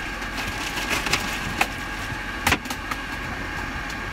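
A steady mechanical drone runs underneath, with a few sharp knocks and clicks from objects being handled in a small van kitchen; the loudest knock comes about two and a half seconds in.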